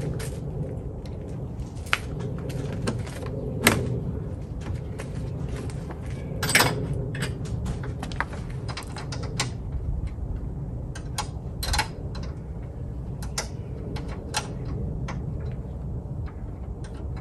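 Irregular metallic clicks, clinks and knocks of hand tools working on a car battery's fittings under the bonnet during a battery change, a few of them louder, over a steady low background rumble.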